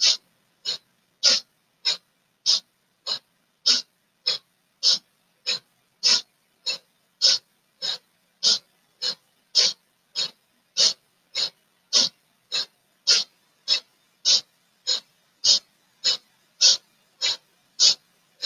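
A woman's quick, rhythmic breathing, a sharp breath in and a sharp breath out a little under twice a second, each breath paced to one turn of a fast seated spinal twist.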